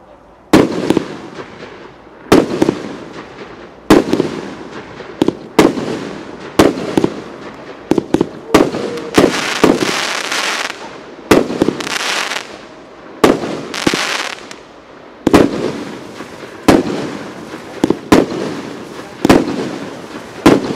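Consumer firework battery firing aerial shots in sequence: a sharp bang roughly every second and a half, some shots in quick pairs, with a spell of crackling bursts around the middle.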